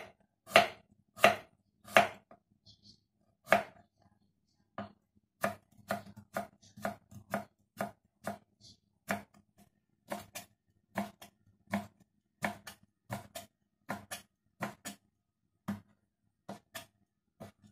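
Kitchen knife chopping carrot on a wooden cutting board, a sharp knock at each stroke: a few loud, spaced strokes, then a quicker, lighter run of about two to three a second as the carrot is cut into thin strips. Near the end the knife cuts black fungus on the same board.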